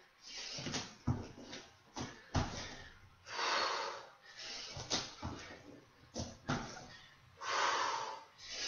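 A woman breathing hard during a bodyweight exercise: two long, heavy breaths about three and a half and seven and a half seconds in. Between them are short soft thumps of hands and feet landing on a floor mat.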